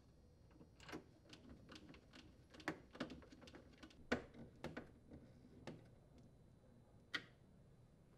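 Faint, irregular clicks and small knocks of a hand screwdriver driving mounting screws into a refrigerator's plastic ice maker housing.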